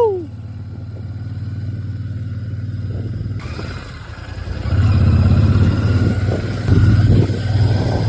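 Royal Enfield Shotgun 650's parallel-twin engine running with a steady low hum, then revving up in two steps as the motorcycle accelerates. A steady hiss comes in suddenly about three seconds in.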